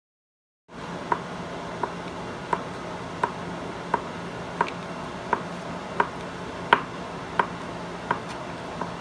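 Chef's knife dicing a stick of cheese on a thin plastic cutting mat: about a dozen evenly spaced knocks of the blade through the cheese onto the board, roughly three every two seconds, over a steady low hum. The sound cuts in abruptly just under a second in.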